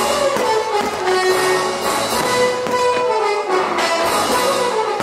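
Orchestral music with brass and strings playing a melody that falls in steps.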